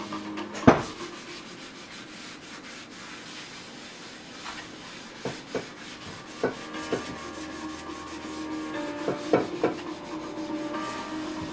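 A gloved hand rubbing the bottom of a frying pan, in quick repeated strokes. There is one sharp knock about a second in, and a few lighter knocks in the second half.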